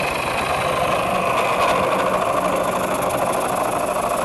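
Wood lathe running while a bowl gouge rough-turns a spinning green birch bowl blank: a steady rushing of the cut and shavings over the lathe motor's hum.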